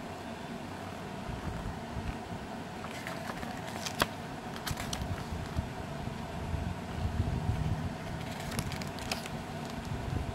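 Paper pages of a small instruction booklet being handled and turned: short rustles and crisp clicks around four seconds in and again near the end, over a steady background noise.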